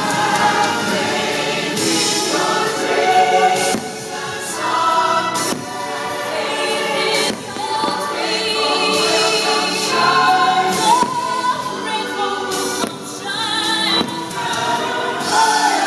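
Fireworks show soundtrack with a choir singing, loud and continuous, with sharp firework bangs breaking through it several times.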